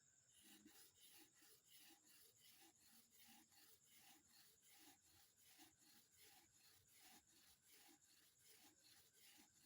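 Faint rhythmic scratching, about three strokes a second, starting a moment in, over a steady high insect trill.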